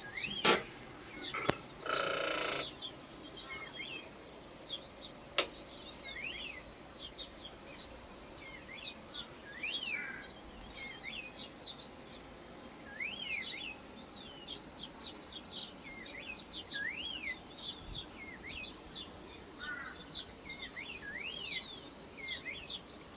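Wild songbirds chirping continuously, with many short rising-and-falling calls overlapping, several a second. There are a few knocks and a brief rustle in the first few seconds, and a sharp click about five seconds in.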